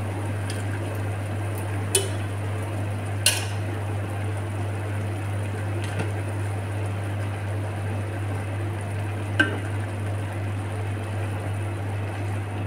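A pot of stew simmering under a steady low hum. A few sharp metallic clicks and knocks come as a can of sardines is emptied into the pot and knocked against it, the loudest about three seconds in. A wooden spoon starts stirring near the end.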